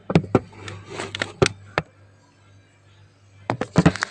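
A phone being handled and set inside a refrigerator: a run of sharp knocks and clicks, a pause, then another cluster of knocks, over a low steady hum.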